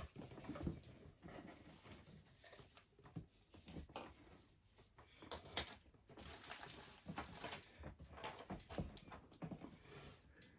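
Faint, scattered rustles and light taps of tarantula substrate being handled and added to an enclosure.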